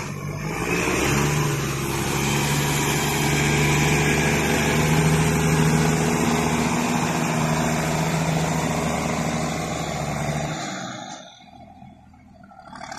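New Holland T6050 tractor's diesel engine running loud and steady as the tractor drives past close by. The engine sound drops away sharply about eleven seconds in.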